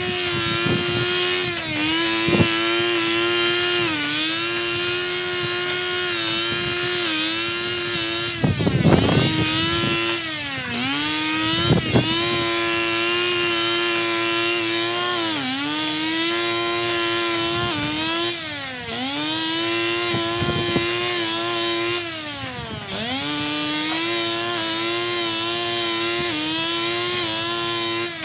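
Petrol brush cutter running at high revs, its engine pitch sagging briefly again and again as the spinning head bites into tall grass, then recovering. A few short sharp knocks stand out, the loudest about nine and twelve seconds in.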